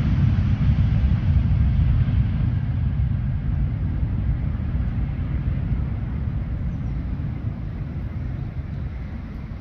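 Four jet engines of an Airbus A340 at takeoff thrust, a deep steady rumble that fades as the airliner moves away on its takeoff roll and climbs out.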